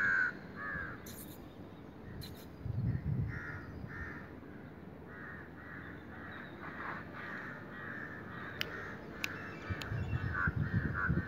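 Crows cawing off and on: one loud caw at the start, then a long run of rapid caws through the second half. A few low rumbles come about three seconds in and near the end.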